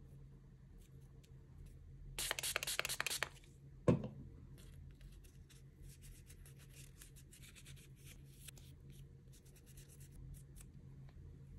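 A lint-free nail wipe rustling and rubbing over long clear nail tips, a faint crackly scratching. About two seconds in there is a louder rustle lasting about a second, followed by a single knock.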